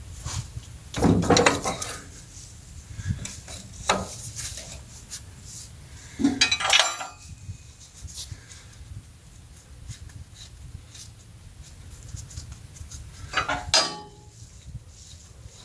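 Steel parts clanking and clattering as they are handled, in several separate bursts: the loudest about a second in, at around six to seven seconds, and near the end, over a steady low hum.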